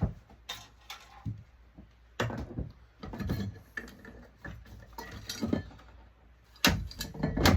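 Irregular clicks, clinks and knocks of small metal parts and hand tools being handled while an electronic ballast is taken apart for scrap, loudest in a cluster near the end.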